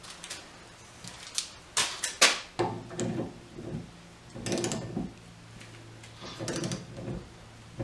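Ratchet of a torque wrench clicking in short runs as the wiper arm nuts are tightened: several separate clicks, then two quick bursts of clicking.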